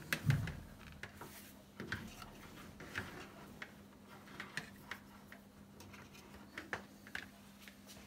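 Faint, irregular small clicks and taps of a wire cable being handled and threaded against the fridge's plastic liner, over a low steady hum.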